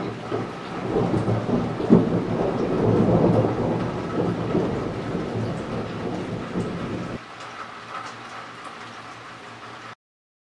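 Thunder rumbling from a nearby lightning strike, with a sharp crack about two seconds in, loudest over the next second or so, then fading away; the sound cuts off suddenly near the end.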